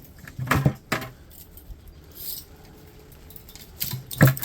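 Small metal parts and hand tools clinking during dismantling: a few sharp clicks in the first second and two more near the end.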